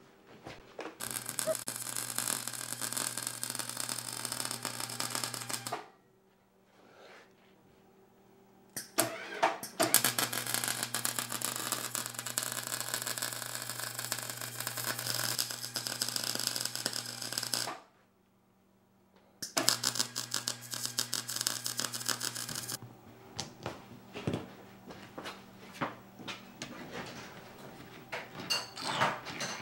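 MIG welder arc on the steel spindles of a go-kart front axle: three runs of steady crackling with a low buzz under it, about four, eight and three seconds long with short pauses between. Scattered clicks and clinks of metal parts being handled follow near the end.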